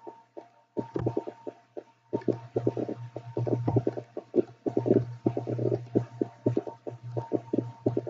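Irregular clicking and tapping of a computer mouse and keyboard as table rows are selected one by one and deleted, over a steady low electrical hum.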